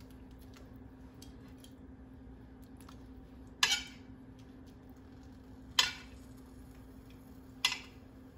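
Metal kitchen tongs clacking against a plate and pan three times, a couple of seconds apart, as chicken drumsticks are moved back into the sauce, over a steady low hum.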